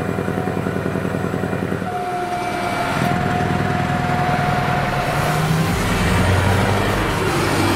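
Scania R500 V8 truck engine running at speed, heard from a car driving alongside, with a fast even pulse to its rumble. About two seconds in the sound changes and a steady high whine holds for a few seconds. In the last two seconds a deeper engine rumble swells as the truck draws nearer.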